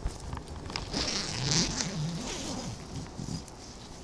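A tent or sleeping-bag zip being pulled and nylon fabric rustling, loudest about a second and a half in, with a low wavering hum under it.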